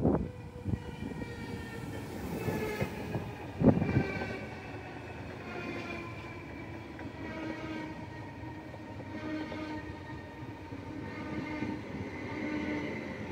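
Stadler FLIRT (ER160) electric multiple unit rolling into the station close by and slowing, its electric traction drive whining in several tones that slide slowly down in pitch over the rumble of the wheels. A single sharp knock comes a little under four seconds in.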